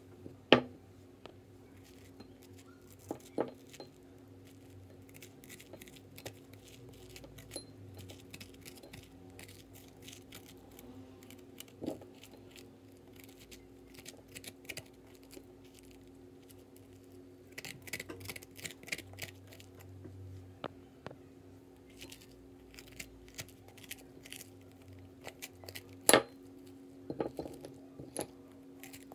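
A metal spoon scraping seeds and stringy pulp out of a halved pumpkin, a scratchy rasp that comes and goes and is busiest a little past the middle, with a few sharp clinks of the spoon against a ceramic bowl, the loudest about half a second in and another near the end. A faint steady hum lies underneath.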